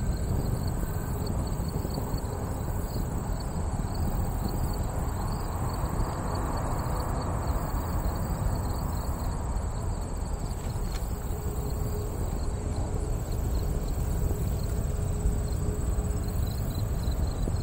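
Insects chirping in a fast, even repeating rhythm, with a steady high buzz, over a steady low rumble.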